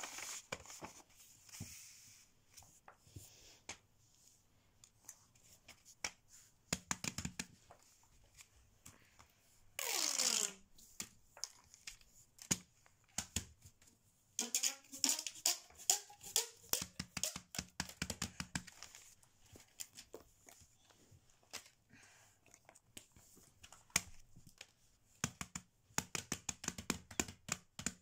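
Hands handling silicone fidget toys on paper: pressing pop-it bubbles, picking up and setting down toys, in a string of light clicks, taps and rustles. There is a falling squeak about ten seconds in and a run of rising squeaks around fifteen seconds in.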